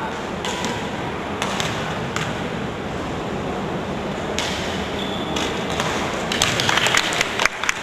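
Steady noise of a basketball gym during a free-throw stoppage, with a few scattered sharp taps and a quick run of clicks and taps near the end.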